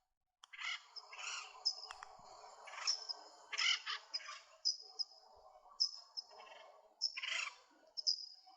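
Forest birds singing and calling: repeated short, high, thin notes mixed with louder scratchy calls, over a faint steady background hum of the forest. The sound starts after a half-second of silence.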